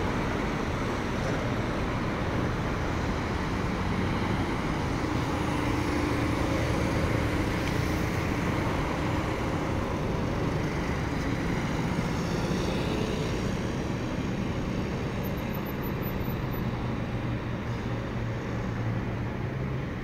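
City road traffic: cars and a motor scooter driving past, a steady rush of engines and tyres, with one vehicle passing a little louder about six to eight seconds in.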